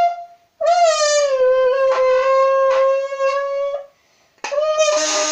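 Folded and twisted large aluminium drink can blown through like a horn, giving a loud buzzing, horn-like tone meant to imitate a Lamborghini. It comes as three held blasts: one ending about half a second in, a long one of about three seconds that dips slightly in pitch at its start, and a third beginning near the end.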